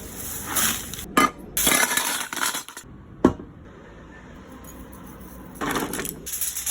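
Tableware being handled: rustling and scraping with two sharp clinks, one about a second in and one past the three-second mark.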